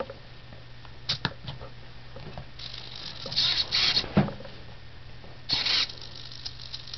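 A few clicks as the power is switched on, then the hobby servos inside the animatronic doll whirring in short buzzy bursts as they drive the limbs to position, over a faint steady low hum.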